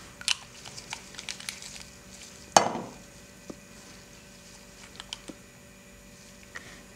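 Close-up handling of glass nail polish bottles and brush on a paper page: light clicks and taps, one sharp knock with a brief ring about two and a half seconds in, then a few faint ticks, over a steady low electrical hum.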